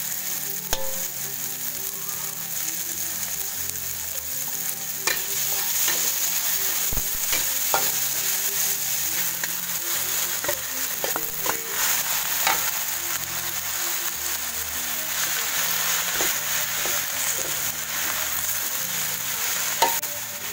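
Stir-frying in a wok: a steady sizzle as tempe, tomato, shallots and fresh spinach leaves cook in oil, with a metal spatula scraping and clicking now and then against the pan.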